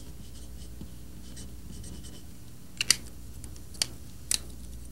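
A few short scratching strokes of drawing on a surface, three brief ones in the second half, over a steady low hum.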